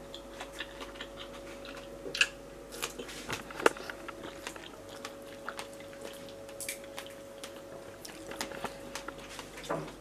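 Someone chewing and biting food close to the microphone: irregular small crunches and clicks over a faint steady hum.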